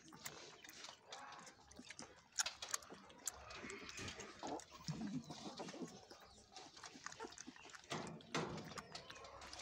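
Dalmatian puppy making short, soft vocal sounds, amid scattered clicks and knocks.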